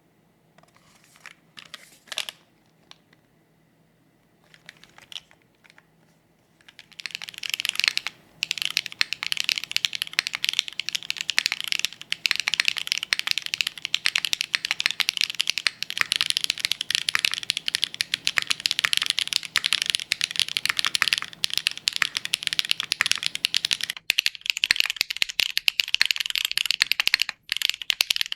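Mechanical keyboard being typed on: a few scattered key clicks at first, then from about seven seconds in a fast, continuous run of typing.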